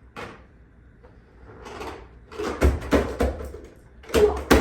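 A string of hard plastic knocks and clatters as a small robot vacuum bumps against the stairs. There is one knock near the start, a cluster of three or four around the middle, and a few more near the end.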